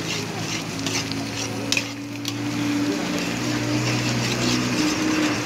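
A metal spatula stirring and scraping Maggi noodles around a shallow pan, with the food sizzling and a sharp scrape about two seconds in. A steady low hum runs underneath.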